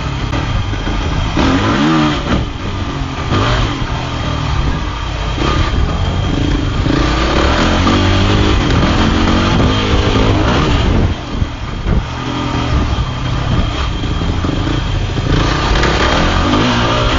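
Dirt bike engine revving hard under load, its pitch rising and falling with throttle and gear changes. The throttle briefly backs off about eleven seconds in.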